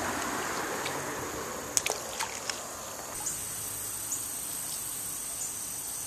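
Creek water trickling under a steady high-pitched insect drone, which grows stronger about halfway through, with a few sharp clicks around two seconds in.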